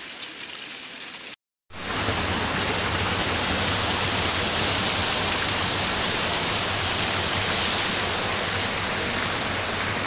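Waterfall cascading over mossy rocks close by: a loud, steady rush of water that starts after a quieter first second and a brief cut to silence about one and a half seconds in.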